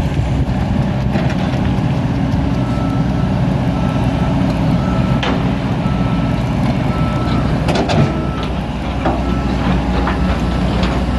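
Kobelco SK200 hydraulic excavator running under load, its diesel engine a steady low drone, with the machine's warning alarm beeping about once a second. A few sharp knocks from the working machine come in the second half.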